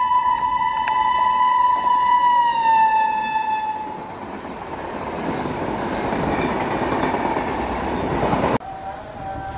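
Electric locomotive's air horn held as it passes at speed, its pitch dropping about three seconds in, followed by the rush of the train's coaches going by. After an abrupt cut near the end, another locomotive horn sounds steadily at a lower pitch.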